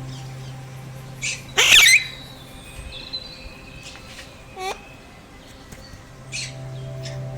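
Alexandrine parakeets calling: one loud, harsh screech about a second and a half in, with shorter chirps around it and a quick falling whistle near the middle.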